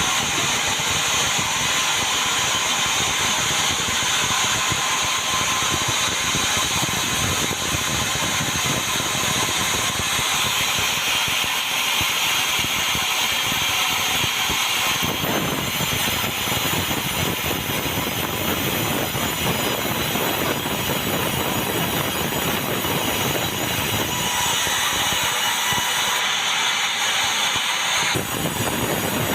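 Sawmill saw cutting through Meranti timber: a steady, loud, high-pitched sawing noise that changes in tone about halfway through and again near the end.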